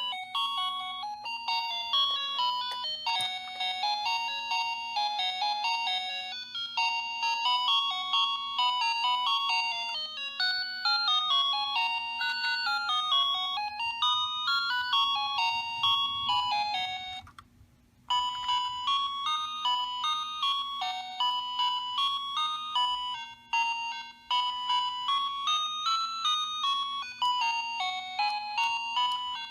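Toy car-alarm key fob playing simple electronic beeping tunes through its small speaker, one note at a time. One tune ends about 17 seconds in and after a brief pause another begins.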